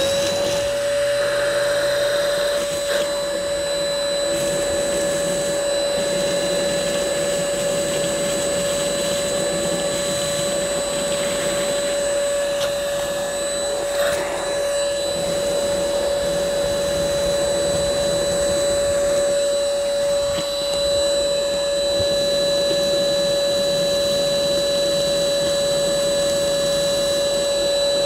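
Ingco 20V cordless handheld vacuum cleaner running steadily with a high motor whine and rushing airflow, sucking wood planer shavings off a concrete floor through its hose.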